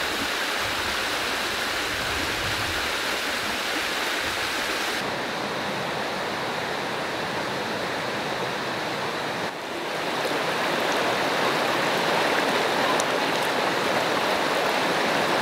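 Water rushing over rocks in a small forest waterfall and shallow stream: a steady rush that shifts abruptly about five and ten seconds in, a little louder in the last third.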